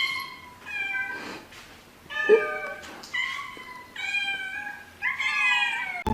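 A cat meowing repeatedly, about five high-pitched meows in a row, the last one the longest.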